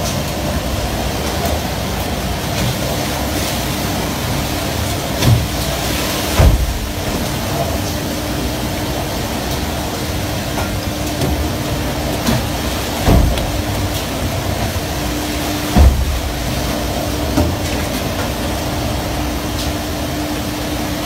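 Fishing vessel's engine and machinery running with a steady drone and a constant hum, over the rush of churning sea water along the hull. Several heavy thumps are scattered through it.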